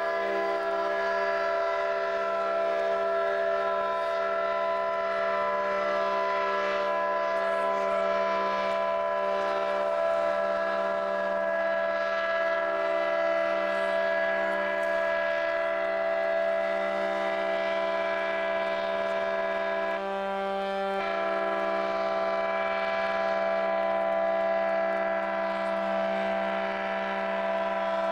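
A chorus of horns and sirens sounding together in one long, steady, many-toned chord, the customary salute as a ship slides down the slipway at its launch. The chord briefly changes about twenty seconds in.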